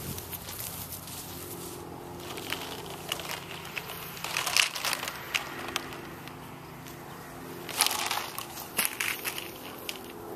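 Coil of black polyethylene drip irrigation tubing being handled and uncoiled across grass: two spells of crackling, crinkling plastic, starting a couple of seconds in and again about eight seconds in, over a steady low hum.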